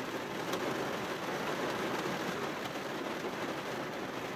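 Rain falling steadily on a car's window glass, heard from inside the car: an even patter with a few sharper single drop ticks.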